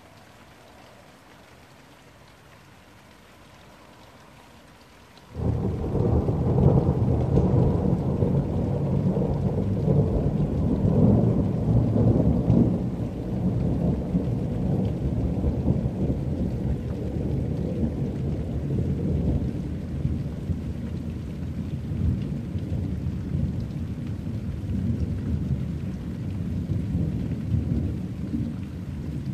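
Steady light rain, then about five seconds in thunder breaks suddenly and rolls on as a long, low rumble that slowly fades.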